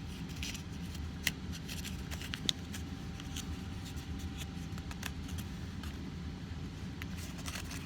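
Accordion-folded origami paper crackling and rustling in scattered small clicks as the folds are pulled apart, over a steady low hum.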